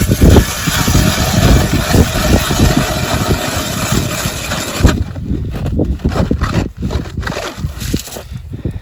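Cordless AEG drill turning an ice auger into the ice, running steadily for about five seconds and then stopping. Wind buffets the microphone throughout.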